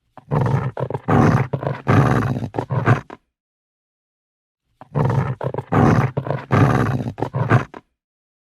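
Angry, agitated dog growling in two bouts of about three seconds each, each broken into short rough pulses, with a pause of under two seconds between.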